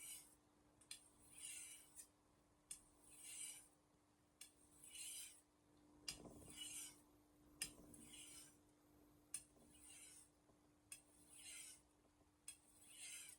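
Steel kitchen knife blade stroked along a Shapton Glass whetstone: faint, rhythmic scraping strokes, about one every second and a half, with a short tick between strokes. A steady low hum lies underneath.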